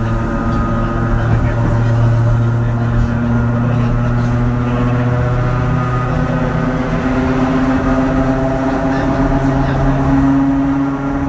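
Steady electrical hum from the onboard equipment of a standing Hakone Tozan Railway Moha 1 car, with several pitches held together. One of them creeps slightly higher in the second half.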